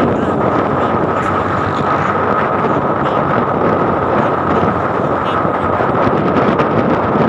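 Steady wind rush on the microphone of a moving motorcycle, mixed with the motorcycle's running noise, at an even level throughout.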